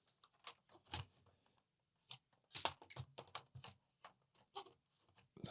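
Scattered light plastic clicks and knocks as an Amiga 500 keyboard is slid under its mounting brackets and settled into the case. The loudest knock comes about a second in, with a quick run of clicks near the middle.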